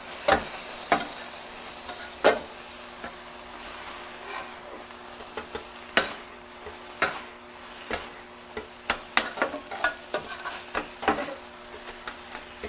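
Chopped chicken in barbecue sauce sizzling on a Vevor 22-inch flattop griddle while two metal spatulas turn and scrape it. The blades clack sharply against the steel plate now and then, more often in the last few seconds.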